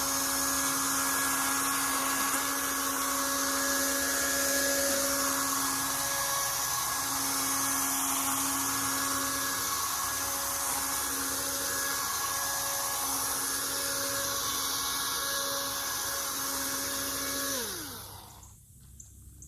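Toro chainsaw's electric motor and chain running at full speed with a steady high whine for about 17 seconds, then winding down with a falling pitch as the trigger is released.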